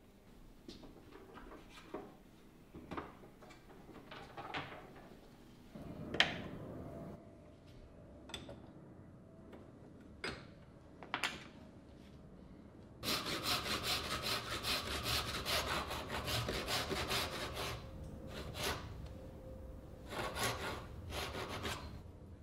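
Hand tools on wood at a workbench: scattered light taps and knocks, one sharp knock about six seconds in. From about halfway there is a quick, steady run of back-and-forth strokes of a hand tool cutting wood for about five seconds, with two shorter runs near the end.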